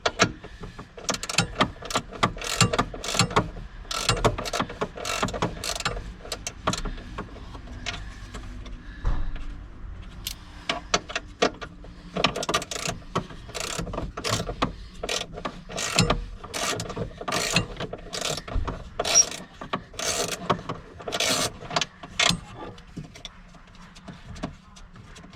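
Hand ratchet with a T30 Torx socket clicking in short irregular runs as the driver's-seat bolts are loosened, with the odd metallic knock of the tool.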